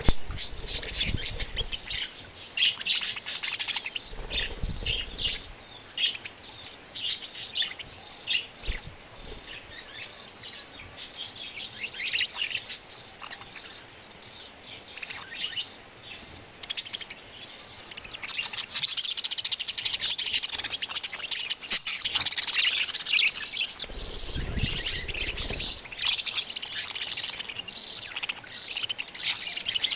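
Baby budgerigars chirping in many short, rapid high calls, growing busier and louder for the second half. A few brief low rumbles sound under them.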